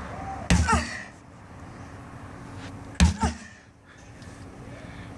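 Sledgehammer striking a stack of tires twice, about two and a half seconds apart, each a heavy thud.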